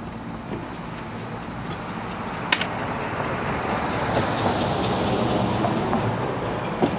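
A vehicle passing by, its road noise swelling for a few seconds and then fading. Two short, sharp knocks from sewing machines being handled in a pickup bed.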